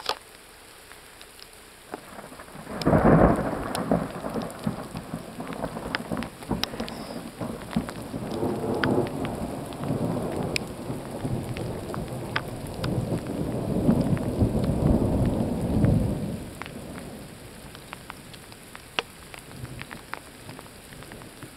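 Thunder from a nearby lightning strike: a sudden loud clap about three seconds in, then a long rolling rumble that swells again later and fades away, lasting some thirteen seconds. Faint scattered ticks are heard throughout.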